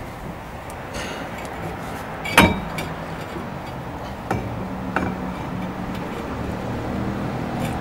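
Metal clanks of a brake caliper assembly being handled and set back into place over the rotor: one sharp clank about two and a half seconds in, then two lighter knocks. A steady low hum runs underneath from about three seconds in.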